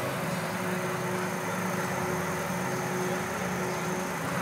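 Heavy engine running at a steady speed, an even low drone.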